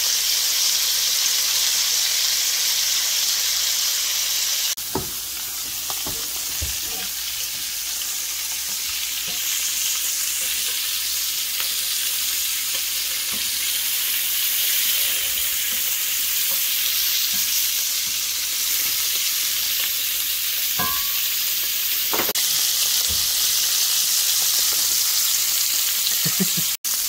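Squirrel pieces searing in butter and olive oil in a hot cast-iron skillet: a steady sizzle, with a few faint clicks.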